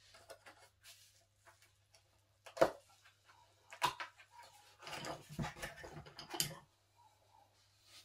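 A few sharp knocks and clicks with rustling handling noise between them, the loudest knock a few seconds in and a busier run of knocks after the middle, over a steady low hum.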